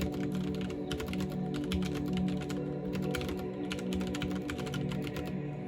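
Fast typing on a CM Storm XT mechanical keyboard with smooth linear switches: quick runs of key clicks that ease off briefly near the end. Steady background music plays underneath.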